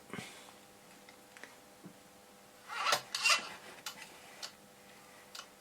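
Light handling noises on a workbench: a few faint clicks and a short rubbing, clattering scuffle about three seconds in, from hands working the power supply's controls and leads.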